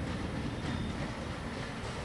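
Diesel-electric locomotive rumbling steadily at low speed as it hauls an express train onto a station loop line, with a few faint clicks of wheels over the rails.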